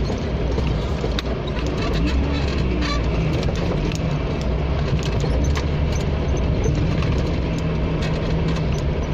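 Four-wheel-drive vehicle engine running steadily while driving an off-road trail, a low drone with frequent short clicks and knocks mixed in.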